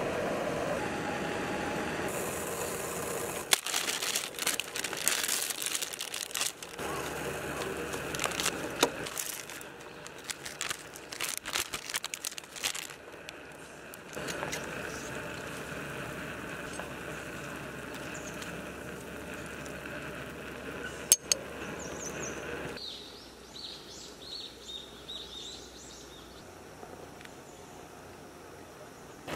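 A foil food pouch crinkling as it is handled and squeezed out, with scattered clicks and knocks of cookware. Then a steady hiss for several seconds, and a few short bird chirps near the end.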